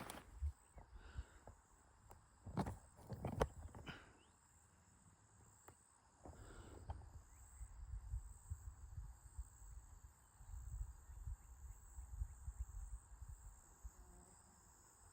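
Insects, crickets or cicadas, making a steady high drone in the woods. A few sharp knocks come in the first four seconds, and low rumbling from wind or handling on the microphone runs through the middle and later part.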